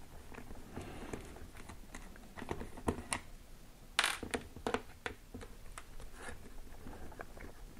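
Small clicks and scrapes of Phillips screws being undone from a hard plastic housing, with a sharp click about four seconds in as a removed screw is set down on a wooden tabletop.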